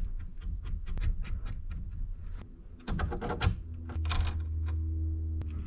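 Olfa utility knife blade scribing along the edge of a brass hinge into a hardwood frame: a quick run of short scratching strokes, about five or six a second, marking the outline of a hinge mortise. About four seconds in, a low steady hum sets in.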